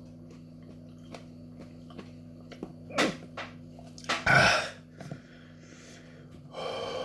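A man belching after swallowing hot Carolina Reaper peppers: a short sharp throat sound about three seconds in, then a louder belch of about half a second just after four seconds, and a softer breathy sound near the end.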